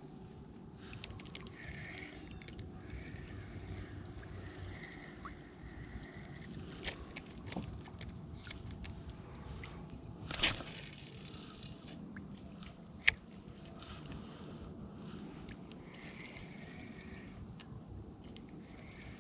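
Water lapping and sloshing against a kayak hull, with scattered small clicks and knocks, a brief louder rush about ten seconds in and a sharp click a few seconds later.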